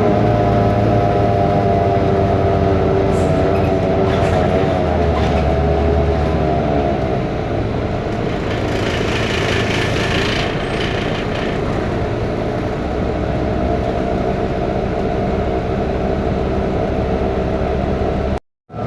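A BMC Belde city bus's Cummins ISBe turbo diesel heard from inside the bus, running with a steady whining drone that the uploader counts as a faulty engine sound. The engine pitch falls about six seconds in, and a hiss follows about eight seconds in. The sound cuts out briefly just before the end.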